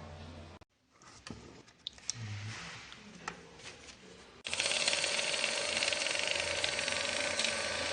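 Mini handheld money counter: a few clicks and taps of handling, then about halfway in its motor starts suddenly and runs with a steady whir as it counts through banknotes.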